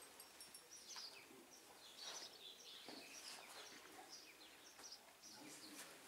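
Near silence, with faint bird chirps scattered through it.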